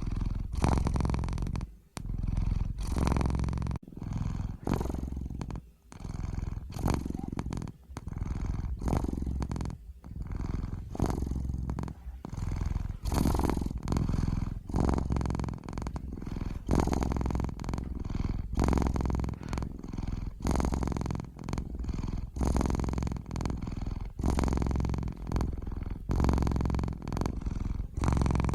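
Domestic cat purring close up, a low rumble that swells and fades with each breath, about one pulse a second with brief dips between.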